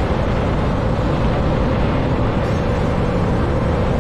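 Scania truck heard from the cab, its engine running in a low gear and holding the truck back on a steep downhill, with road noise: a steady drone with a constant hum through it.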